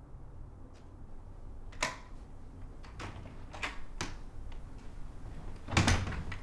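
A door being unlocked and opened: a few sharp clicks and knocks, then a louder knock and thud near the end.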